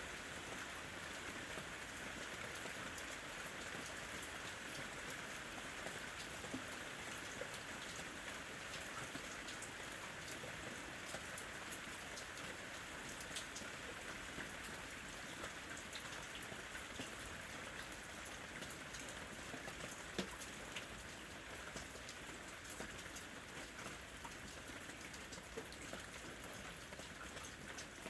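Steady rain falling, with a continuous hiss and many separate drops ticking on a surface.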